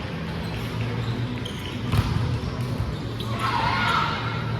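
A volleyball struck once with a sharp smack about two seconds in, over a steady low hum, with a voice calling out a second or so later.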